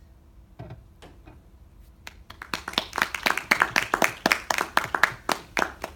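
A small audience clapping, starting about two seconds in, with the separate claps of individual hands plainly apart rather than merging into a roar.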